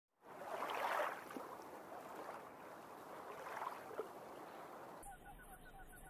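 Shallow water lapping gently at a stony shore, swelling twice. About a second before the end it changes abruptly to a quick run of short, evenly spaced chirps.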